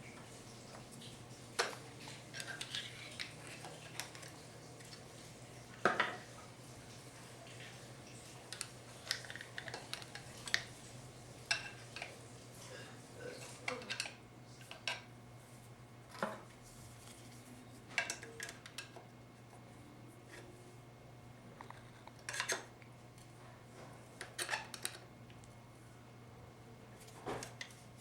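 Irregular metal clinks and clanks of hand tools against 4L60E automatic transmission parts as a tight input drum is worked loose from the case, over a steady low hum.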